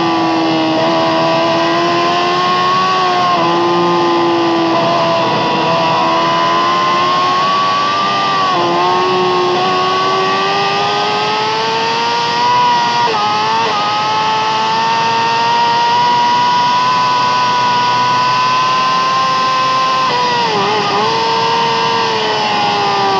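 Yamaha R6 inline-four sportbike engine running hard at high revs through an Akrapovic exhaust, heard onboard. The pitch holds high with slow drifts and dips and wavers briefly a few times as gears are changed.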